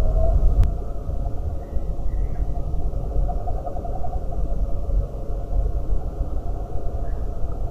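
Steady low rumble of outdoor background noise picked up by a CCTV camera's built-in microphone, with a faint hum and a couple of faint short high chirps.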